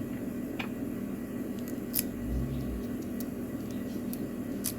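A few light metallic clicks as a steel padlock and its key are handled, spread out over several seconds, with one soft low bump near the middle, over a steady low hum.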